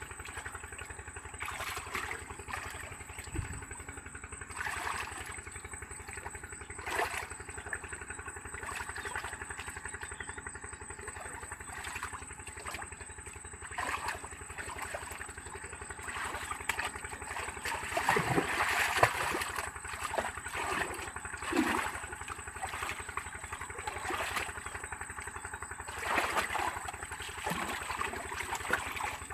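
A small engine running steadily under the whole stretch, with scattered clicks and knocks over it.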